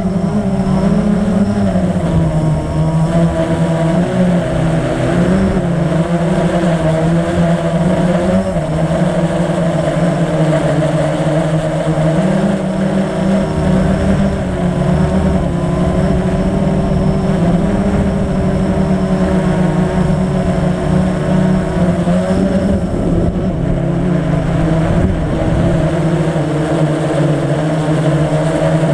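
Blade 350 QX quadcopter's four electric motors and propellers buzzing in flight, heard close up from the camera mounted on the drone. A steady, loud hum whose pitch wavers up and down as the throttle changes.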